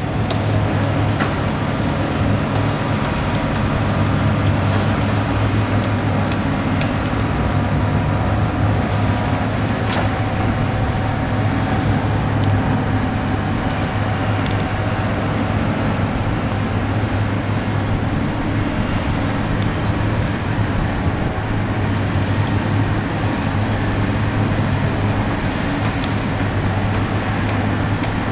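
Steady drone of heavy diesel construction machinery running, with a few faint knocks.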